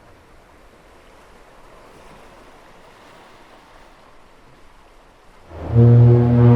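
A soft hiss of surf and wind, then about five and a half seconds in the Sumburgh foghorn starts a loud, deep, steady blast with many overtones, still sounding at the end.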